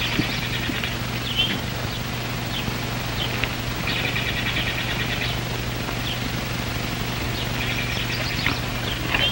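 Birds chirping in short clusters of rapid, high trills, over the steady low hum and hiss of an old film soundtrack.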